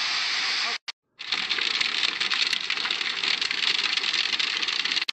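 Floodwater rushing steadily, cut off a little under a second in. After a brief gap comes heavy rain, a dense hiss full of sharp ticks from drops striking hard surfaces.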